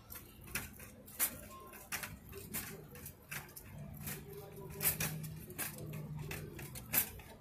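Footsteps of a person walking on pavement, a regular tread of about one and a half steps a second, with a faint low hum in the middle.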